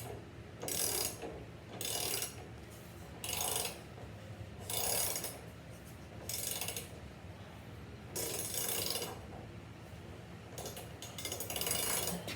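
A mechanism rattling or ratcheting in short, regularly repeated bursts, about one every second to second and a half, eight or nine in all.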